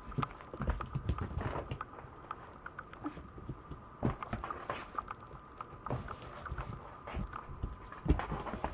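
Maltese puppies' paws and claws clicking and pattering irregularly on a wooden floor as they scamper about and jump up, with occasional soft thumps.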